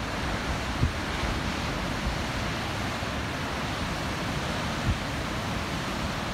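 Ocean surf washing on rocky shore, a steady, even rush of noise.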